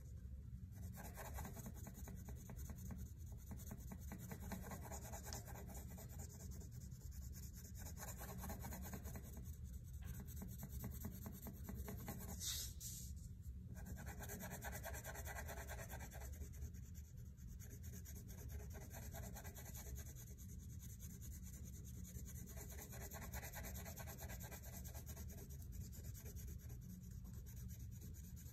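Blue-green wax crayon rubbed rapidly back and forth on a sheet of paper, a faint steady scratchy scribbling with a few brief pauses. A short, sharper high sound stands out about halfway through.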